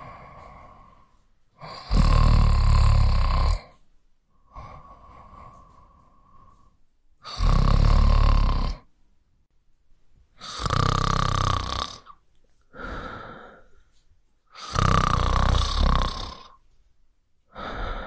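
A person snoring in slow, even rhythm: four loud, deep snores about four seconds apart, with a fifth just starting at the end, and softer breaths out between them.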